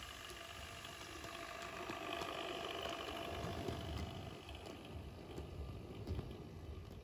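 Roco H0 model diesel locomotive (class 215) running on sectional track with its two freight wagons: a steady electric-motor whir with a low rumble, louder as the train passes close by about two to four seconds in, and faint ticks from the wheels on the track.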